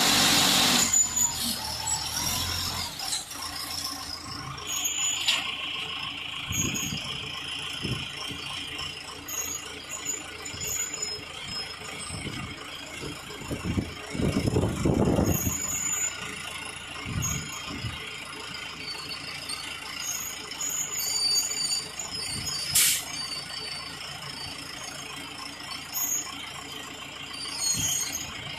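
A 4.0 m³ self-loading concrete mixer at work: its engine runs steadily under high-pitched squeals that come and go, with a sharp knock late on.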